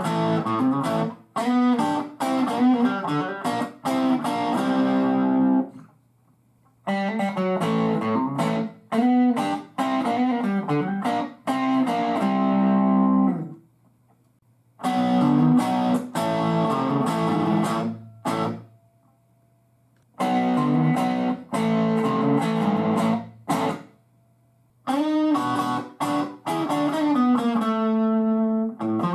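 Electric guitar played through a Marshall DSL valve combo amp, in several short phrases separated by brief pauses. A faint steady amp hum can be heard in the gaps.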